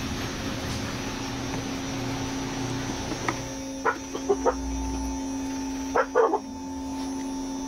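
Steady background hum, with several short, sharp sounds in small clusters from about three seconds in to about six and a half seconds in.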